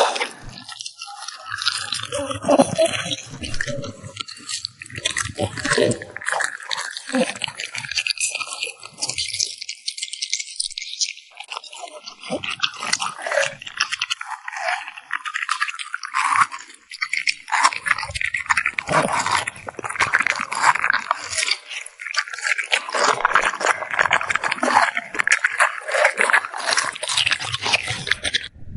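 French bulldog chewing and crunching food close up, a dense run of quick wet bites and crunches with brief lulls.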